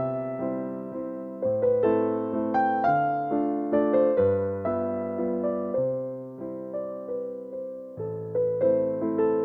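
Background music: a gentle piano piece with sustained bass notes and a slow melody of decaying notes.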